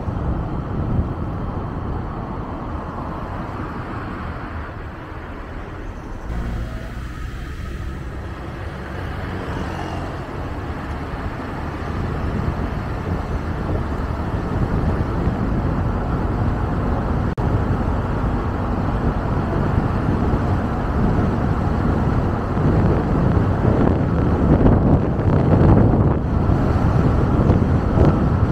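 A car driving: steady tyre and road noise with a low rumble, dipping briefly about six seconds in, then growing louder over the second half as the car picks up speed.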